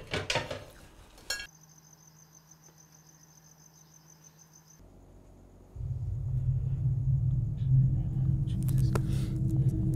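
Dishes clatter briefly, then crickets chirp steadily and faintly. About six seconds in, a low sustained musical drone comes in and holds.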